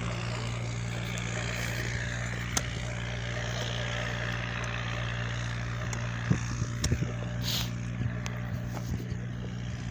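An engine running steadily at a constant speed, with a few light knocks about six to seven seconds in.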